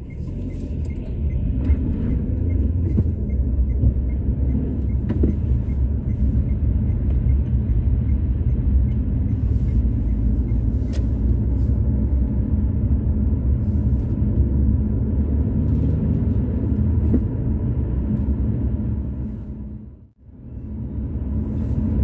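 Car engine and tyre noise heard from inside the cabin while driving: a steady low rumble. It drops out briefly near the end.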